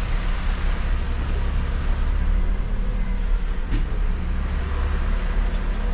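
Refuse collection truck's engine running steadily as the truck drives slowly, heard from inside the cab: a low drone with a hiss over it. A few sharp clicks come through about two seconds in, again a little later, and near the end.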